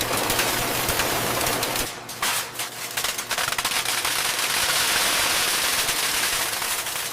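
Factory machinery clattering: rapid clicks over a steady low hum, giving way after about two seconds to a dense hissing noise.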